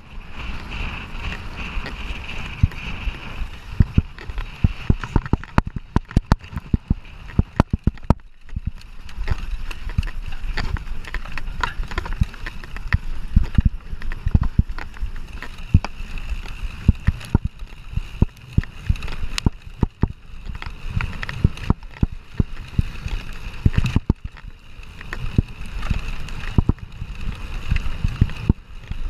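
Mountain bike being ridden over rough cross-country trail: steady rumbling tyre noise with frequent irregular rattles and knocks from the bike over bumps.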